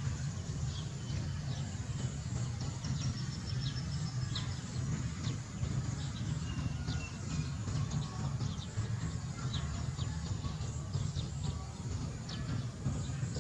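Outdoor rural ambience: a steady low rumble with scattered short bird chirps and a few brief whistled bird calls.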